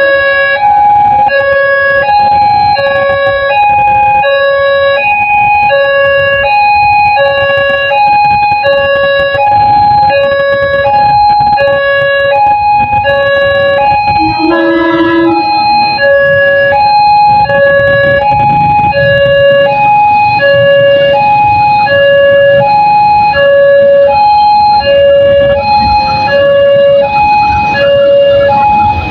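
Railway level-crossing warning alarm sounding a repeating two-tone electronic chime, high and low notes alternating about once a second, warning of an approaching train. A short single-note vehicle horn sounds about halfway through, over road traffic rumble.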